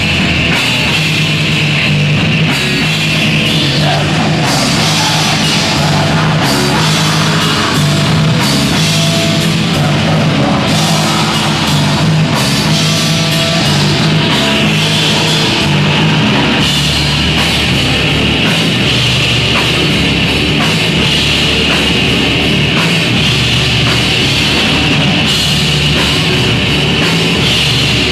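Black metal band playing live at high volume: distorted guitars, bass and drums in a dense, unbroken wall of sound, with the drum hits standing out more plainly in the second half.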